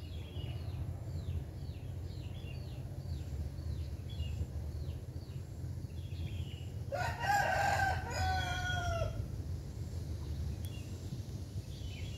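A rooster crows once, about seven seconds in, a long call of about two seconds. A small bird chirps repeatedly through the first half, over a steady low rumble.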